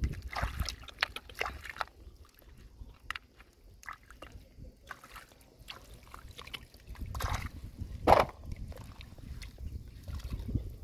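Hands working in a shallow pool of water, scooping up clams: water sloshing and splashing, with short clicks of clam shells knocking together. A louder splash stands out just after eight seconds in.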